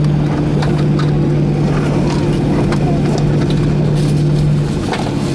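Boeing 737-900ER cabin noise: a steady engine hum over a haze of noise, with scattered clicks and knocks. The hum drops in level shortly before the end.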